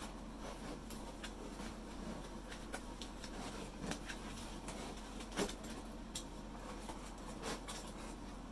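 Light, scattered clicks and taps of a microphone kit's parts and packaging being handled, with one sharper knock about five and a half seconds in.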